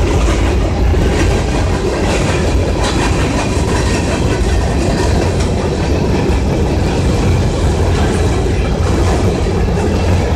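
Empty coal hopper cars of a CSX freight train rolling past, a steady, loud rumble of steel wheels on the rails.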